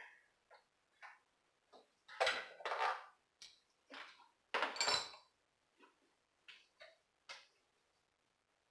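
Metal hand tools clinking and rattling on a bolt as it is loosened, in two short bursts of clatter with scattered light clicks between them.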